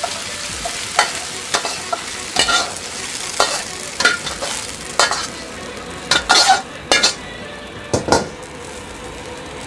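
A metal wok spatula scrapes and knocks against a wok while chicken pieces sizzle in hot oil and are scooped out. The sizzle dies down about halfway through, leaving a few sharp scrapes and clanks of metal on metal.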